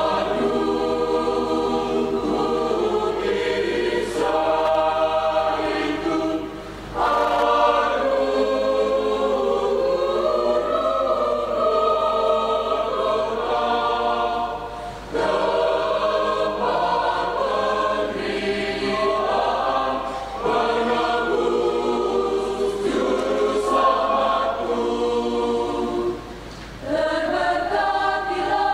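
Mixed church choir of women's and men's voices singing a hymn, phrase by phrase, with brief breaths between phrases at about a quarter, halfway and near the end.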